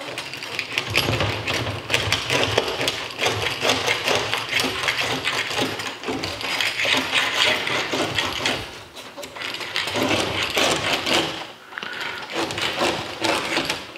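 Screen spline roller worked back and forth along a screen frame's groove, pressing the spline and screen mesh into the channel with a crunching, clicking rattle that pauses briefly twice.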